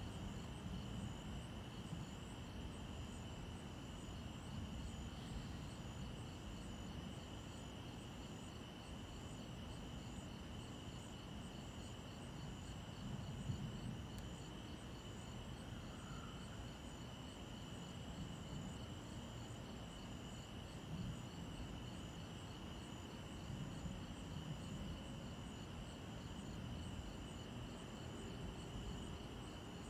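Crickets chirping on a summer night: a steady high trill with evenly repeating pulsed chirps above it, faint, over a low, even background noise.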